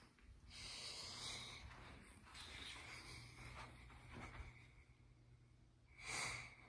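Faint breathing close to the microphone: soft breaths for the first few seconds, then one short, louder breath about six seconds in.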